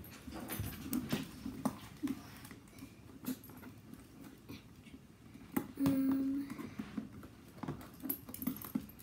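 Scattered clicks, snips and plastic rustling from cutting and handling the plastic wrapping of a toy ball. About six seconds in, one short, steady dog whimper.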